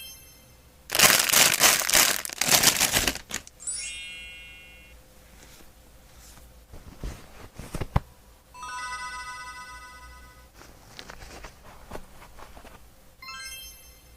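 Edited chime sound effects: a quick rising run of notes at the start and again near the end, a ringing tone around four seconds in and another held for about two seconds near nine seconds. Between them, about two seconds of loud crinkling a second in, the loudest part, and a few light taps and clicks of craft handling.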